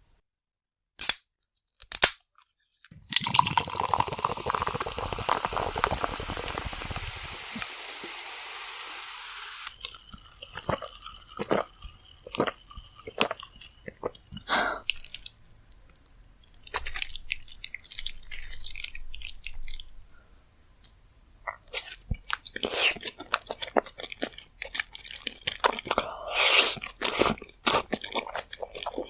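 Close-miked eating sounds of saucy rose jjimdak with glass noodles. Two sharp clicks come first, then several seconds of steady rustling noise, then many short wet clicks, smacks and chewing sounds.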